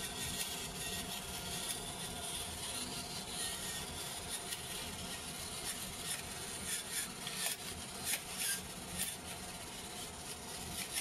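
Pepper mill grinding peppercorns, a dry rasping with a run of sharper cracking clicks in the second half.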